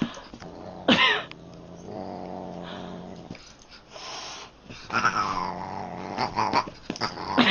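Siamese-type cat growling and yowling in a scuffle, with a sharp falling yowl about a second in, a steady low growl a little later, and another falling yowl about five seconds in. Scuffling rustles and clicks are heard between the calls.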